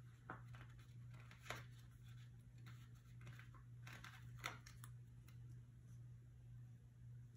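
Near silence with a low steady hum, broken by a few faint, brief rustles and taps of paper sticker sheets being handled and a small sticker pressed onto a planner page.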